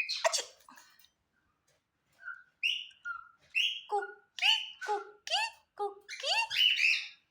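Cockatiel chirping and giving short whistled calls, many of them rising in pitch, coming faster in the second half. A brief noisy rustle opens it.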